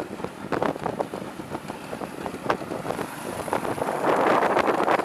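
Bajaj Classic two-stroke scooter running along in second gear, mixed with wind noise on the microphone and irregular clicks and knocks. The wind noise grows louder about four seconds in.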